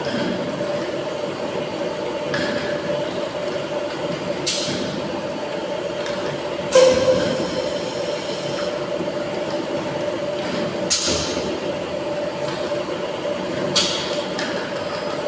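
Tilting-type air-jet bottle washing machine running with a steady mechanical hum. A few short hissing bursts of compressed air break through every few seconds, the loudest about seven seconds in.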